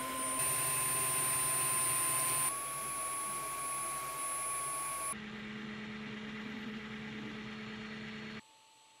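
Dreame H12 Pro wet-dry vacuum's base station running its self-drying cycle: a steady fan whir with a thin high whine. Its level and pitch step abruptly a few times, and it falls to a faint hum near the end.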